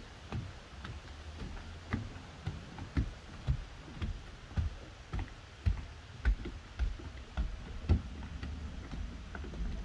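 Footsteps walking at a steady pace, about two dull footfalls a second with light clicks, on a forest trail.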